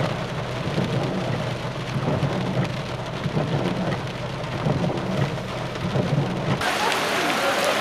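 Heavy rain pouring down, with a low rumble beneath it. About six and a half seconds in, the sound changes abruptly: the low rumble drops away and the rain hiss turns brighter.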